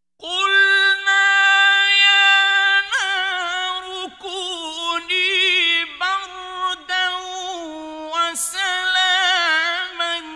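A male Qur'an reciter chanting in the mujawwad style, starting a moment in out of silence: one high-pitched, long-held melismatic vocal line with wavering ornaments and a few brief breaks.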